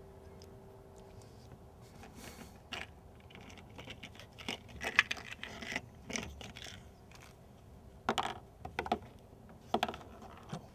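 Small steel needle rollers clicking and clinking against one another and the steel gear as they are set one by one into the bore of a Spicer T-90 transmission cluster gear. The light metallic clicks start about two seconds in, with a few sharper taps near the end.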